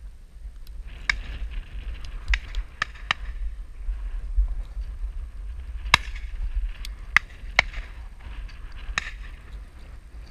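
Shotgun shots: scattered sharp cracks, the loudest about six seconds in and another just over a second later, over a steady low rumble of wind on the microphone.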